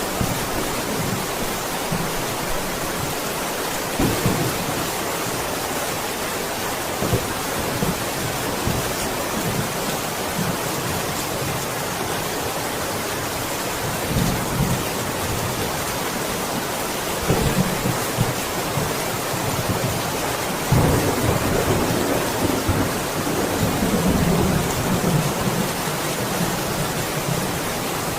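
Steady rain, with several low rolls of thunder rumbling under it; the longest and loudest roll comes past the middle.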